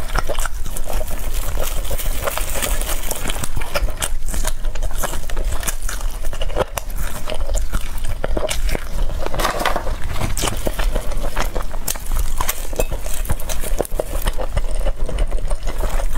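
Close-miked eating sounds: crispy fried chicken coating crackling as it is torn apart and bitten, with chewing, in many irregular small crunches.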